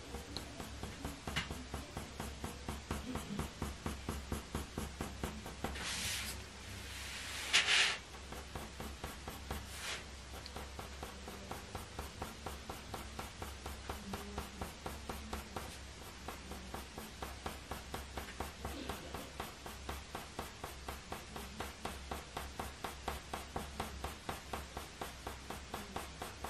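Coloured pencil, an oil-based Faber-Castell Polychromos, scratching on hot-pressed watercolour paper in quick short flicking strokes, about three a second, as fur hairs are drawn. A louder breathy hiss comes in about six seconds in.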